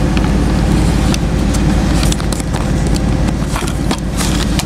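Semi-truck's diesel engine idling steadily, heard inside the cab as a low hum, with a scatter of short clicks and knocks from the camera being handled and moved.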